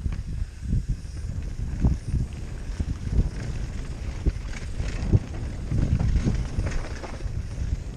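Downhill mountain bike ridden fast over a rough, rooty forest trail, heard from the rider's helmet: a steady low rumble of tyres and bike with frequent knocks and rattles as it hits roots and bumps, and wind buffeting the microphone.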